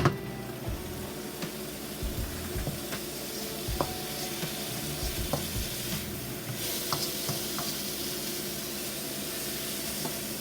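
Food sizzling as it cooks, a steady hiss that gets brighter about two-thirds of the way through. There is a sharp click at the start and a few light clicks later.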